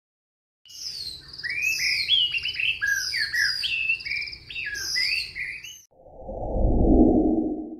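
Birdsong: a rapid run of chirps and trills, overlapping and sliding in pitch. About six seconds in it stops and a low whoosh swells and fades.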